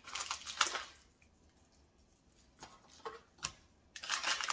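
Onion powder being shaken from a spice shaker onto a steak: a spell of short, rustly shakes, a few light clicks, then a longer spell of shakes near the end.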